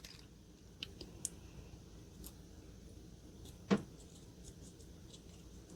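A few faint, scattered clicks and light taps of small metal lock parts and tools being handled, with one louder click a little after three and a half seconds in.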